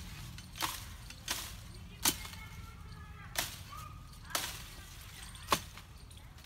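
Six sharp chops of a curved hand blade striking tree branches, coming unevenly about a second apart.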